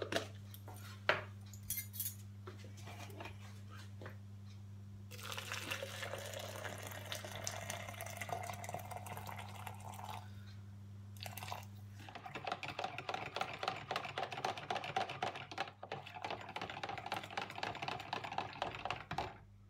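Hot water poured from an electric kettle into a plastic measuring jug of vegetable bouillon, the pitch of the pour rising as the jug fills, for about five seconds. Then a spoon stirs the stock quickly in the jug, with rapid scraping and tapping against the plastic, for about seven seconds.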